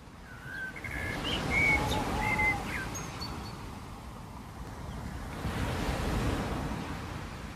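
Outdoor ambience: a handful of short bird chirps in the first three seconds over a steady low rumble.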